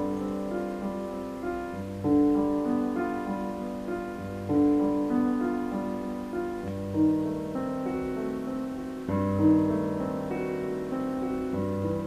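Background music: piano playing slow sustained chords, a new chord struck about every two and a half seconds.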